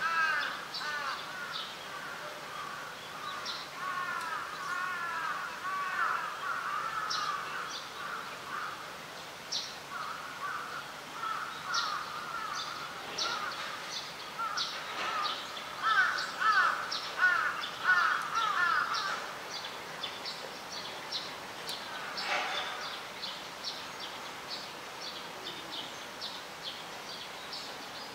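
Wild birds calling: runs of quick, repeated calls, with short high chirps scattered throughout, loudest a little past halfway.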